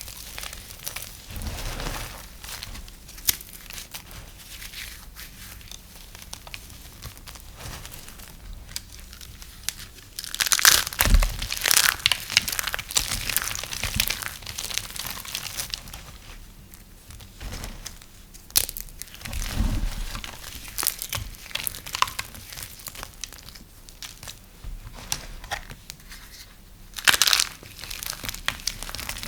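Dry soap being cut with a knife: crisp crunching and crackling in irregular bursts, loudest about a third of the way in and again near the end.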